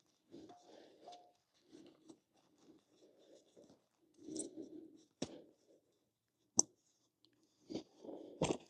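Faint rubbing and scraping of hands working the scooter's rubber rear tire and wheel parts, with a few sharp clicks or knocks.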